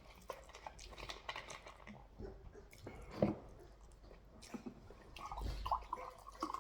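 Close-up eating sounds: chewing, with scattered small wet mouth clicks, of someone eating rice and turkey.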